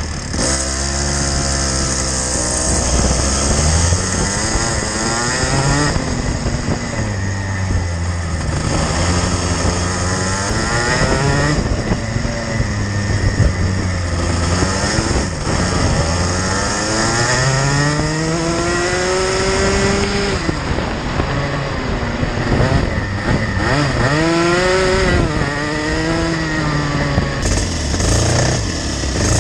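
Racing kart engine heard onboard at close range, its pitch climbing steadily and then dropping again over and over as the kart accelerates down the straights and lifts for the corners. Near the end the sound cuts abruptly to several kart engines running together on the grid.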